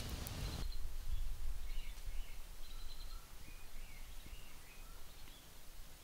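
A wood fire crackling briefly, cut off abruptly, then forest birds calling: many short, faint chirps and whistles over a steady low rumble.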